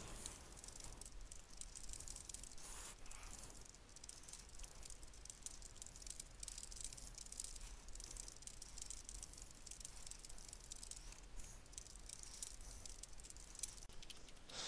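Fast typing on a computer keyboard: a faint, quick run of key clicks.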